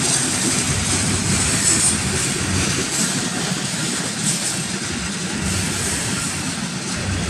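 Freight cars (covered hoppers and a tank car) rolling past: a steady rumble of steel wheels on rail.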